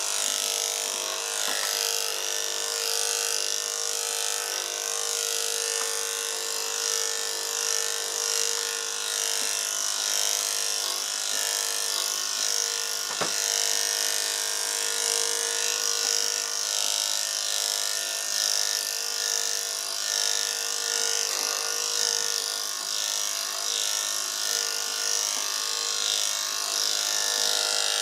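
Corded electric dog clippers running with a steady buzz as they cut through the dog's facial fur, with a single click about halfway through.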